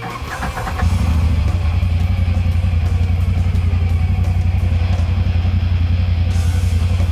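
UTV engine cranked by the starter and catching within about a second, then running at a steady idle.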